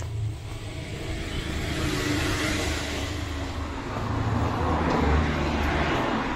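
Road traffic: cars passing close by, tyre and engine noise swelling twice, about two and a half and five and a half seconds in, over a low engine hum.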